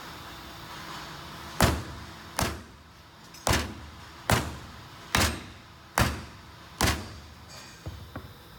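Seven sharp knocks, about one a second, as a pneumatic cylinder's top end cap is tapped down onto the oiled barrel to seat it over its O-ring.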